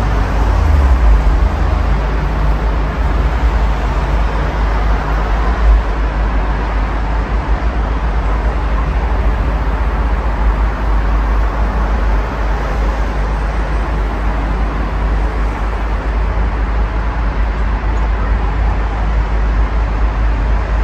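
Steady road traffic noise from cars on a multi-lane road: an even wash of tyre and engine noise with a deep low rumble underneath.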